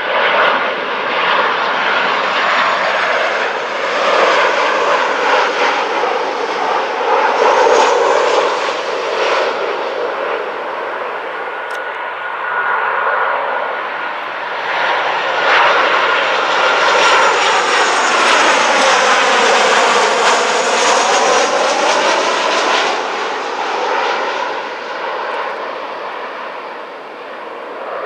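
Boeing 737 jet airliner on final approach, its engines giving a steady rushing noise with a whine and a swirling, sweeping quality as it passes. It swells twice and fades near the end.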